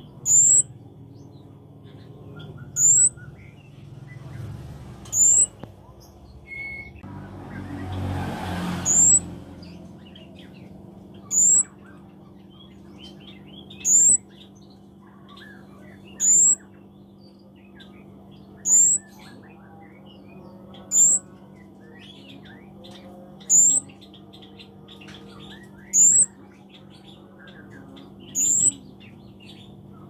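Young flowerpecker (cabe-cabean) calling: a single sharp, very high chirp that slurs upward, repeated regularly about every two and a half seconds. A brief rustle comes about eight seconds in.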